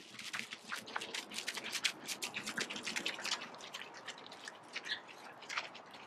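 Running footsteps crunching on a dirt and gravel trail: many quick, irregular steps that thin out after about three and a half seconds.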